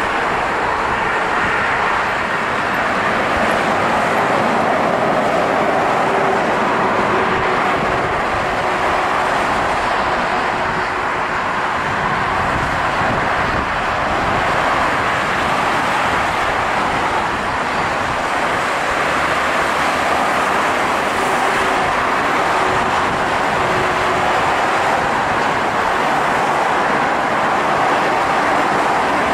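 Steady jet roar from an Airbus A320-214's CFM56 turbofan engines on final approach, an even rushing noise with faint steady tones under it.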